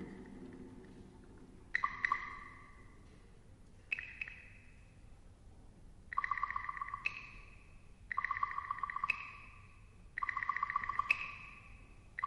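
Small Chinese hand cymbals and small gongs struck one at a time, each stroke a clear, high ringing tone that fades over about a second. The strokes are sparse at first, then come about once a second in the second half.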